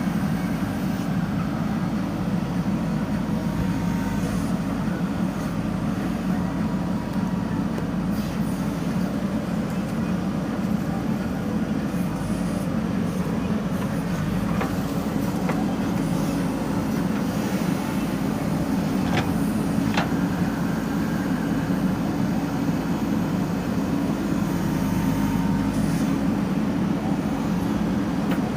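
Diesel engine of a JCB 3DX backhoe loader running steadily under load while digging, with two sharp knocks about two-thirds of the way through.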